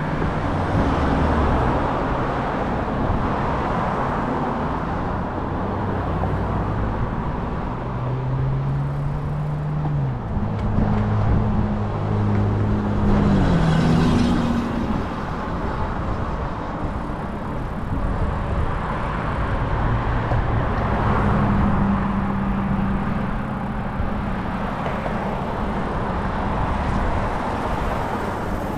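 Riding noise from an e-bike on the move: wind rushing over the microphone and tyre noise. A low hum comes and goes several times, gliding up and down in pitch.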